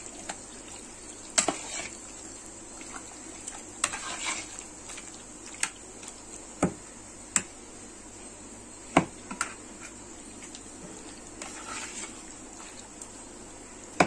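A steel spoon stirring raw chicken pieces through a wet yogurt-and-spice marinade in a plastic bowl: soft wet squelching, with sharp clicks of the spoon against the bowl every second or two.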